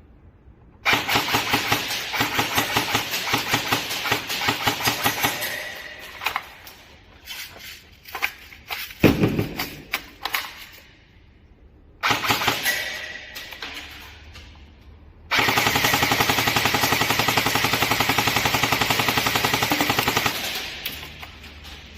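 Airsoft guns firing full-auto in rapid bursts, with a few single shots and a heavy thump in between, and one long steady burst of about five seconds near the end.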